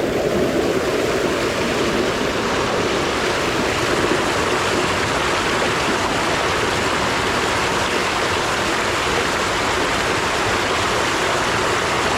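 Steady rush of flowing water, constant and unbroken.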